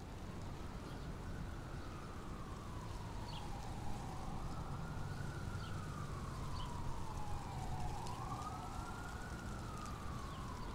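Siren wailing in slow up-and-down sweeps, rising and falling about every four seconds, over a steady low rumble.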